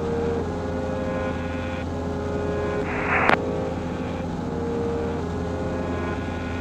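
Cessna 150's four-cylinder Continental O-200 engine and propeller in steady cruise, a constant drone heard from inside the cockpit. A brief hiss ending in a click comes about three seconds in.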